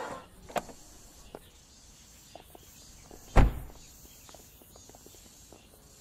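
A car door shutting with a single heavy thud about three and a half seconds in, after a few faint clicks.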